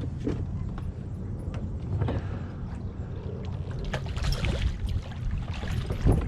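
Water splashing and sloshing around a fishing kayak, with scattered short knocks and clicks over a steady low rumble.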